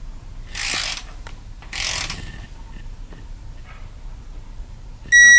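Hand wrench ratcheting on the timing-belt tensioner arm bolt of a 4G63 engine, in two short runs of clicks. Near the end comes a loud, high-pitched electronic beep lasting about half a second.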